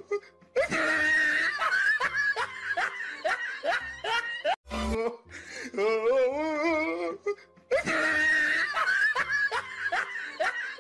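A looped laughter sound effect over music: a wavering, drawn-out laugh, then a run of short falling laughs and a brief pause. The same loop plays twice.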